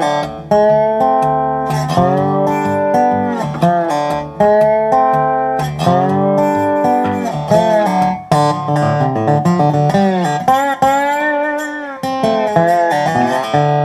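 Resonator guitar with a spider cone and full mahogany body, played with a slide: picked phrases whose notes slide up and down between pitches.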